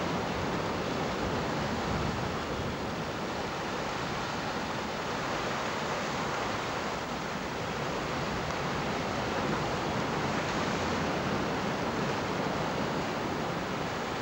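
Steady rushing noise of sea surf and wind, an even hiss with no single wave break standing out.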